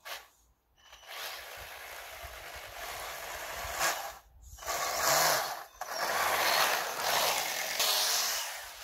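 Radio-controlled snowmobile's low-kV (2650kv) brushless electric motor and track running in spells as it is driven over snow, the motor pitch rising and falling with throttle. There are brief gaps about half a second in and again around four and five and a half seconds.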